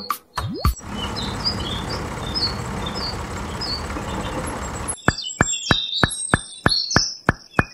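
A tractor engine running, probably a dubbed effect for the toy tractor. A few clicks and a rising swoop come in the first second, then a steady noisy run for about four seconds. About five seconds in, it changes to a quick, even putt-putt of roughly four or five beats a second, with birds chirping faintly above it.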